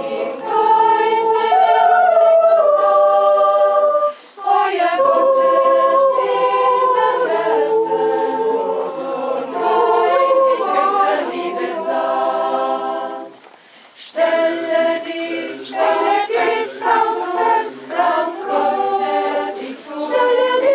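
Choir singing a hymn in several parts, with held notes and brief breaths between phrases about four seconds in and again near fourteen seconds.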